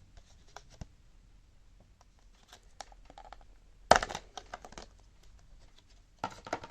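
Small retail packaging being opened and handled: scattered light clicks and crinkling, with one sharp snap about four seconds in and a quick run of clicks near the end.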